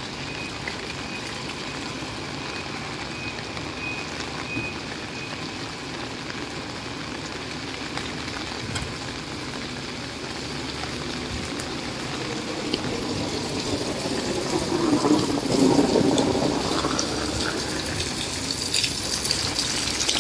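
Steady rain falling on a wet street. The noise swells louder for a few seconds about three-quarters of the way through.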